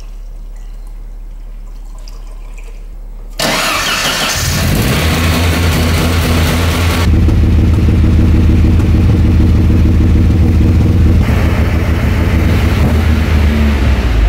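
Audi A4 1.8 turbo four-cylinder engine, fitted with a big turbo, starting up about three seconds in and settling into a steady idle, heard at the exhaust tailpipe.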